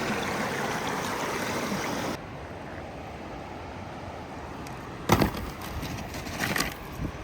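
Steady rushing outdoor background noise that drops off abruptly about two seconds in, followed by a few sharp knocks near the end.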